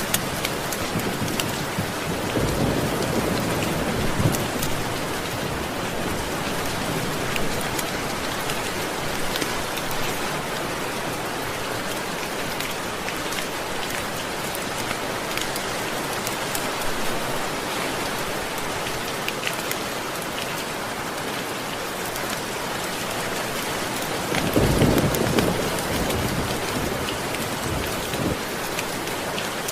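Steady heavy rain with thunder rumbling low twice, softly a couple of seconds in and louder near the end.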